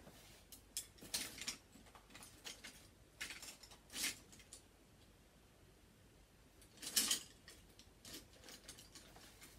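Paint being mixed on a palette: scattered short scrapes and clicks of a brush working on the palette, the loudest about seven seconds in.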